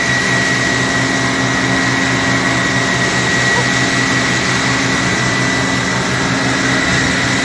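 Steady engine drone with a constant high-pitched whine over a hiss, unbroken throughout, from the machinery at work at an aircraft fire.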